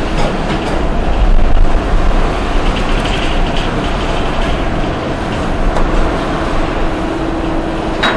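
Hanging roller concrete pipe machine running, a steady mechanical rumble and rattle with no pauses. A faint steady hum joins near the end.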